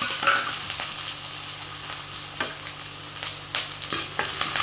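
Chopped shallots sizzling in hot groundnut oil in a metal kadai, a steady frying hiss. In the second half a few sharp clicks sound as a steel ladle starts stirring against the pan.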